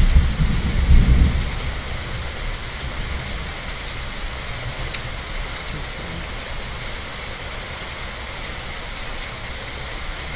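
Steady rain with a low rumble of thunder at the start that dies away after about a second and a half.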